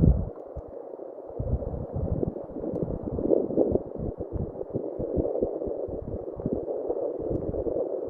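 Muffled, steady rushing noise with irregular low thumps of wind buffeting the microphone, in a dull-sounding, low-quality recording.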